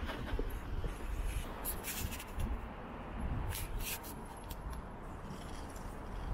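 Outdoor ambience of walking on paving: a steady low rumble with a few short scuffs and clicks, about two seconds in and again near the middle.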